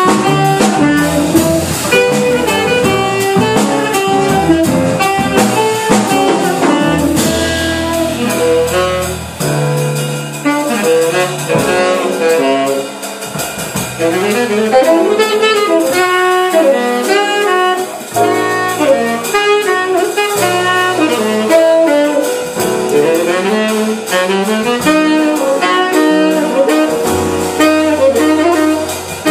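Live jazz combo playing, a saxophone carrying the melody over upright bass and drum kit, with guitar and piano.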